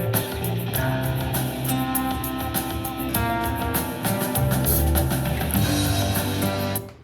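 Rock-style instrumental music with guitar and strong bass, played back through a portable Bluetooth speaker; the music cuts off abruptly just before the end.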